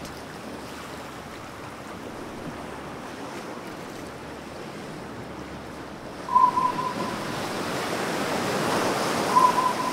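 Sea waves washing steadily, a sound effect for a sailing boat. About six seconds in, a louder rushing water noise takes over, with two sets of three quick, high electronic beeps a few seconds apart.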